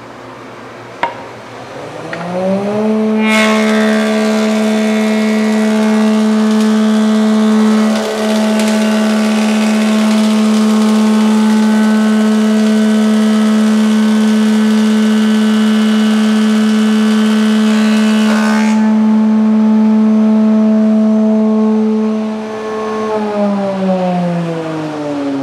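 Thickness planer switched on with a click, its motor winding up to a steady hum, then the cutterhead planing a board in a loud continuous cutting noise for about fifteen seconds that stops abruptly as the board exits. The motor hums on, then winds down in pitch near the end as it is switched off.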